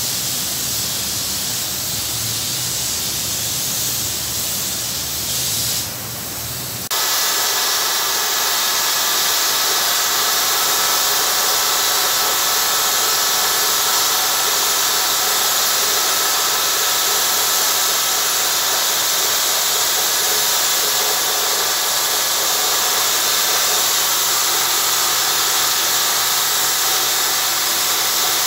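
Gelcoat spray guns hissing steadily as they spray. About seven seconds in, the sound cuts to a second gun with a brighter, higher hiss and faint steady tones beneath it.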